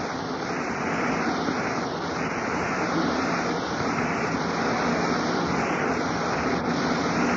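Steady crowd noise from a packed baseball stadium, heard through a 1949 AM radio broadcast recording.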